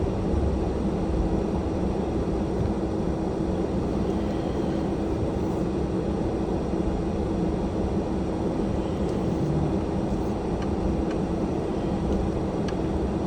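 Steady in-cabin vehicle noise from a car driving on a road covered in solid ice and snow: the engine's even hum under a constant rush of tyre and road noise.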